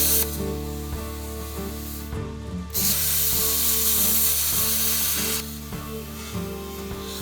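Steel roof plate being cut with a power cutting tool, a loud hiss that stops just after the start and comes back for about two and a half seconds in the middle. Background music with a repeating pattern plays underneath.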